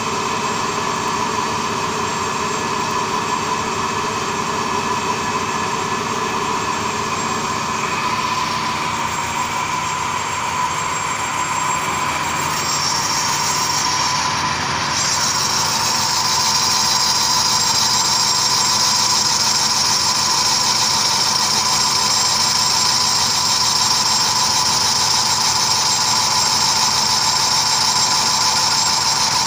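Retrofitted 1988 Romi CNC lathe running a roughing cut, a steady machine hum with a constant mid-pitched tone. About halfway through a higher-pitched whine joins as the tool cuts, and the sound gets a little louder.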